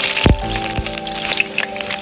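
Hot oil sizzling and crackling in a pan, flaring up in a sudden loud burst at the start as food goes in, then a steady crackle, over background music.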